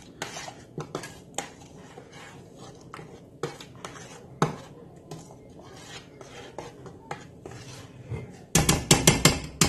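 Metal spoon stirring soup in a stainless steel pot, with light scrapes and clinks against the pot's sides. Near the end comes a quick run of louder metallic clinks against the pot.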